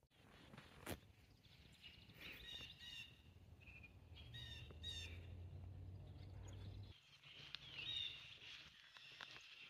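Small birds chirping, in short repeated calls. A low steady hum is under the chirps from about four seconds in and cuts off suddenly about seven seconds in.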